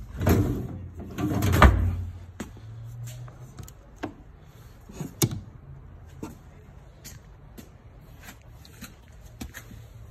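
Drawers and doors of a vintage medical/dental cabinet being handled: a drawer sliding and banging twice in the first two seconds, then scattered clicks and knocks.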